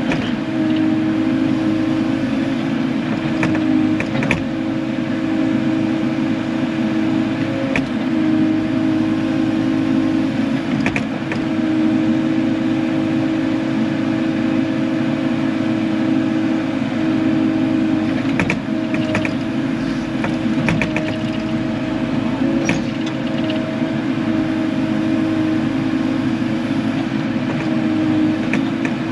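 Diesel engine of heavy equipment running steadily under load, with scattered short clanks and knocks, most of them bunched near the end.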